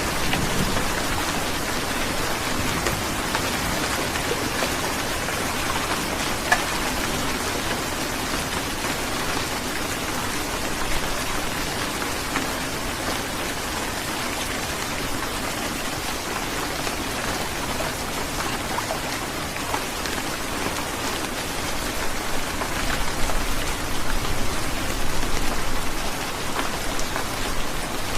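Heavy rain falling steadily, a dense hiss of drops striking a surface with scattered sharper drop hits, one standing out about six seconds in. The downpour grows heavier for a few seconds near the end.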